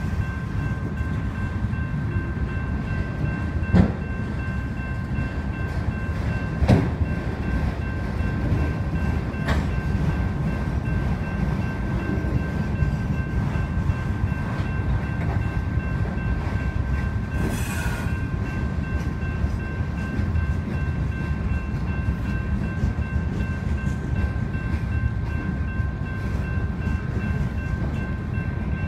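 Freight cars of a passing train rolling through a grade crossing with a steady rumble, with a few sharp clanks about 4 and 7 seconds in. The crossing's electronic warning bells ring without a break over it.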